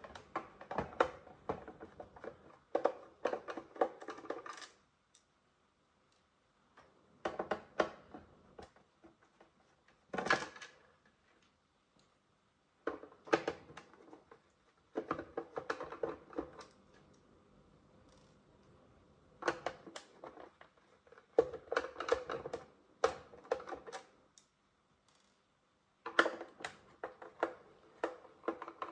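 Hand screwdriver backing small screws out of the plastic housing of an iRobot Roomba i3 robot vacuum: short bursts of rapid clicking and rattling, plastic and metal against each other, with pauses between the bursts.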